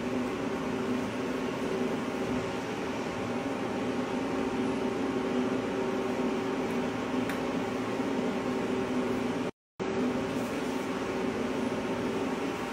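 Steady hum of a cosmetic skin-treatment machine running, a few held tones over a noisy whir. The sound drops out completely for a moment about nine and a half seconds in.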